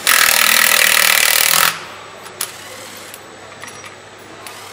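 A handheld power nutrunner runs in one loud, steady burst of about a second and a half, tightening a bolt where the gearbox joins the Bentley W12 engine, then stops abruptly. A single sharp click follows about a second later.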